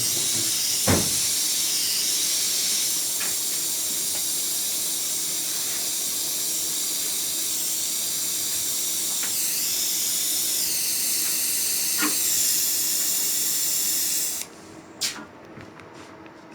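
Jeweller's gas soldering torch hissing steadily, shut off suddenly about fourteen seconds in. A few light metallic clicks are heard along with it.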